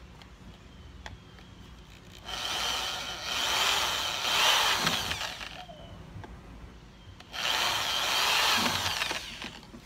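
Corded electric drill boring two holes through a kayak's plastic hull: two runs of about three seconds and two seconds, a couple of seconds apart, each with a steady high tone from the spinning drill.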